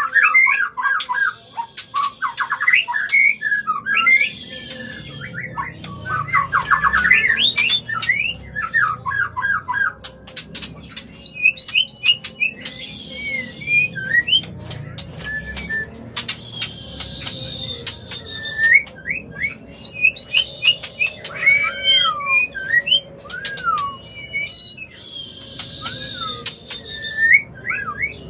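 White-rumped shama (murai batu) mating song: a continuous run of varied phrases, with fast stuttering trills, sliding whistled notes and several harsh raspy notes lasting a second or two each.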